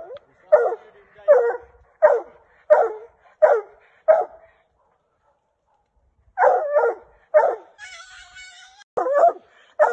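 Hunting dog barking at a raccoon treed above it, at a steady pace of about one and a half barks a second. The barking stops for about two seconds midway, then starts again.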